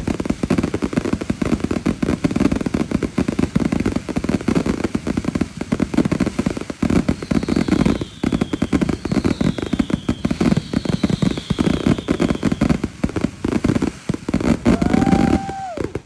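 Fireworks going off in a rapid, continuous string of pops and crackles. About halfway through come three short falling whistles, and near the end a steady whistling tone holds for a second or two.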